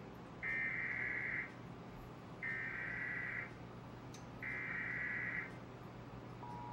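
Emergency Alert System SAME header: three one-second bursts of warbling digital data tones, evenly spaced a second apart. Near the end, the EAS two-tone attention signal starts as a steady dual tone.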